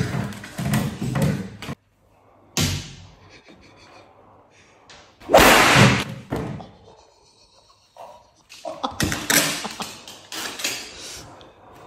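A series of heavy thumps and knocks against a wooden tabletop as a person drops down onto it. The loudest comes about five seconds in, and a cluster of further thuds falls near the end.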